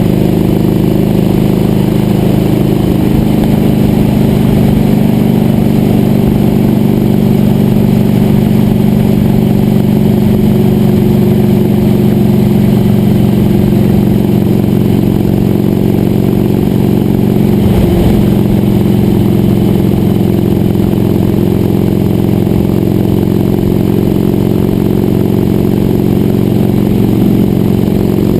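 Sawmill engine running steadily at a constant speed, with a brief dip in pitch and a knock about two-thirds of the way through.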